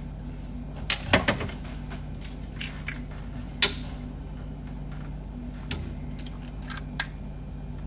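Light clicks and knocks of bottles and a glass being handled: a quick cluster of three about a second in, then single ones spaced through the rest, over a steady low hum.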